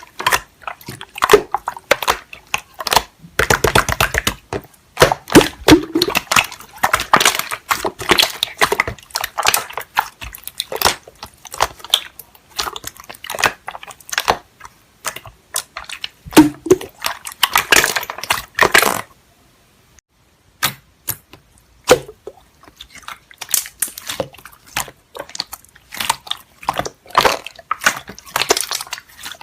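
Slime being squeezed, poked and pressed by hand, giving dense irregular clicks, crackles and wet pops, with a brief pause about two-thirds of the way through.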